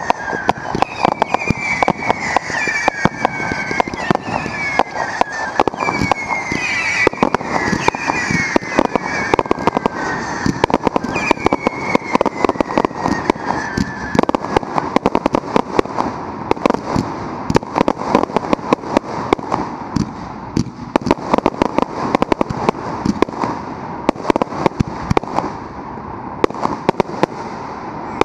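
A fireworks display firing in rapid succession: dense bangs and crackling reports. Over the first half, falling whistles sound through the bangs.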